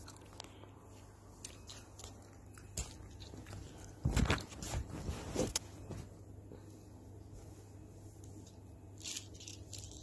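Close rustling and handling noises with scattered light clicks, loudest in a rough rubbing, crunching stretch of about a second and a half starting about four seconds in.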